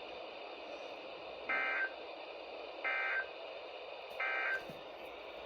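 Three short bursts of EAS digital data tones, the end-of-message code that closes a NOAA Weather Radio broadcast, each about a third of a second long and about 1.4 s apart. They come through a weather radio's speaker over a steady hiss.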